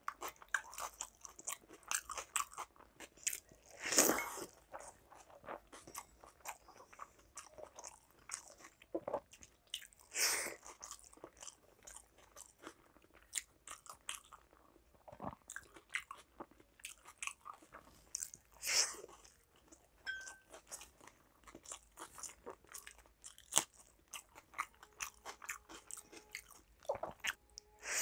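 Close-miked mouth sounds of eating panta bhat (water-soaked rice) by hand: steady chewing and crunching of crisp fried sides. A few louder, longer wet slurps come as watery rice is taken from the fingers.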